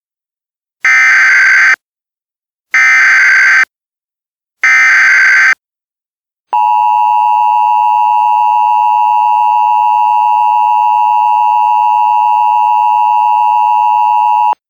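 Emergency Alert System header and attention signal: three one-second bursts of SAME data tones with short gaps between, then the steady two-tone EAS attention signal for about eight seconds, which cuts off sharply.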